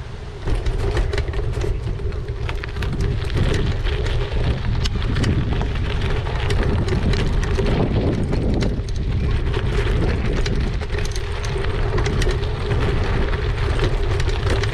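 E-bike tyres crunching and crackling over a rough path and gravel track, with wind rumbling on the microphone and a steady hum from the e-bike's motor underneath.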